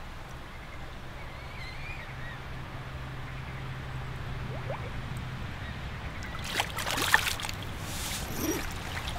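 Lake water splashing and sloshing as a released carp kicks out of a submerged sling at the water's edge, a run of splashes starting about six and a half seconds in. Before that, only a faint low drone.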